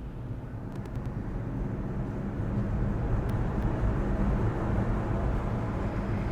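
Tyres rolling on the road of a Mercedes-AMG C63 E Performance driving on electric power alone, its combustion engine switched off. The noise grows slowly louder as the car gently picks up speed.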